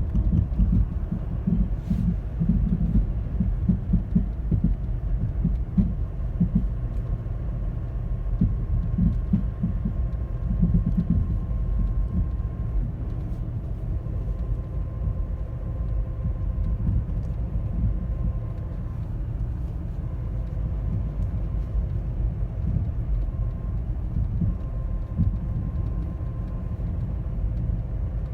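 2010 Toyota Corolla LE with a thumping, popping noise over a low rumble, the thumps coming irregularly and thickest in the first dozen seconds. A faint steady whine runs underneath from a few seconds in.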